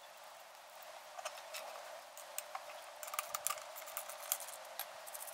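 Light, scattered clicks and small metal clinks, a few in quick clusters, from handling an aluminium intake pipe with a blow-off valve and clamp fitted.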